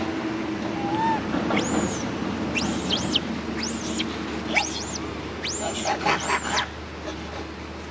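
Baby macaque crying: a string of about six shrill, high-pitched screams between about 1.5 and 6.6 s in, each rising and falling back, the distress cries of an infant monkey.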